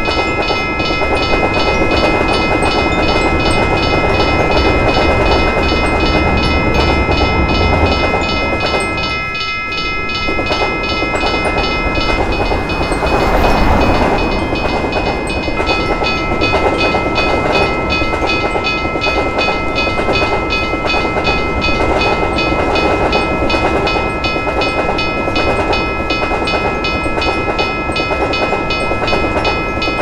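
Railroad crossing warning bell ringing rapidly and without pause over the rumble and clickety-clack of passing trains. The train noise dips briefly about nine seconds in, then swells with a rush a few seconds later.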